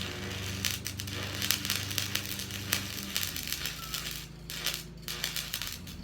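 Electric arc welding: the arc strikes abruptly and holds as a dense crackling sizzle over a low hum, breaking off briefly twice a little after four seconds in.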